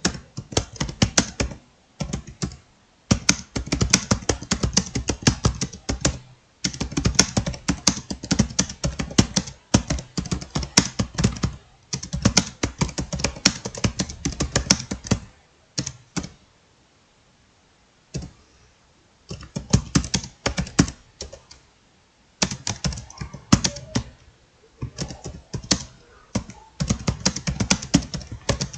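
Fast typing on a computer keyboard: rapid runs of key clicks broken by short pauses, with a longer pause a little past halfway.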